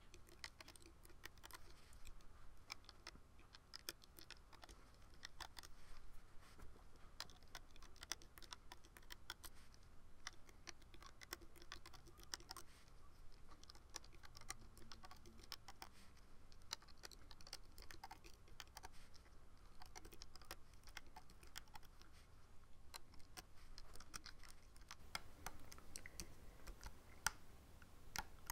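Faint, irregular clicks and scratches of a loom hook pulling rubber bands over the pegs of a plastic Rainbow Loom.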